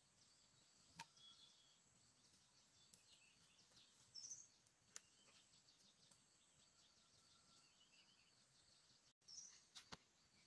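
Near silence: faint outdoor ambience with scattered short bird chirps and a few sharp clicks.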